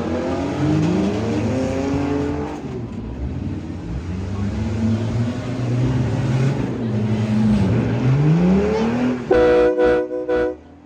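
Demolition derby cars' engines revving, their pitch sweeping up and down again and again. About nine seconds in, a loud steady horn blast cuts in, breaking off briefly near the end.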